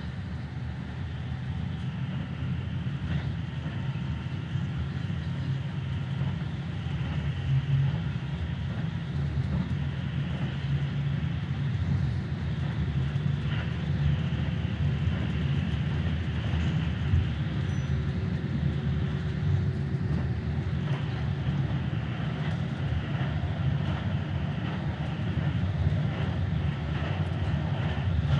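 Keikyu 1000-series electric train running at speed, heard from inside the front car: a steady low rumble of wheels on rail and running gear, growing a little louder over the first few seconds.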